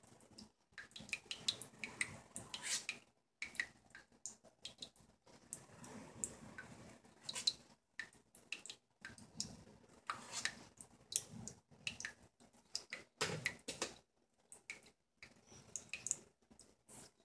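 Faint, irregular scraping and small clicks of a plastic cake comb smoothing Swiss meringue frosting around a cake as the cake turntable is turned by hand.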